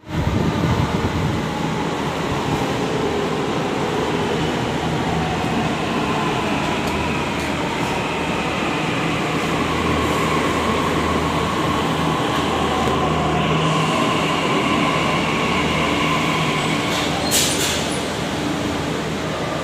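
Delhi Metro train sounding in an underground station: a steady rumble with faint whining tones over it, and a sharp clack about seventeen seconds in.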